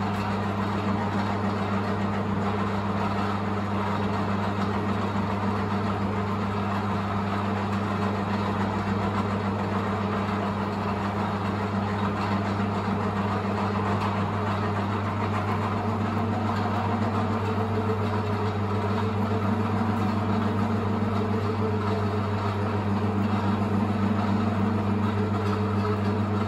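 Optimum 3008 metal lathe running at its slowest spindle speed of 68 rpm, a steady low hum from the motor and drive, while an M8 tap is fed into mild steel.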